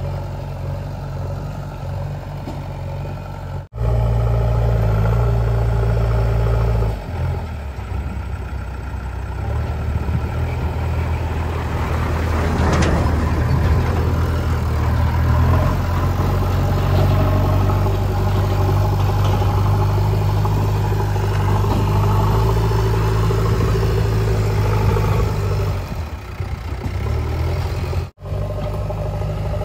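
JCB backhoe loader's diesel engine running under load as the front loader bucket pushes and levels soil, with a steady low hum. The engine note swells rougher and louder for a couple of seconds about 13 seconds in, and the sound drops out briefly twice.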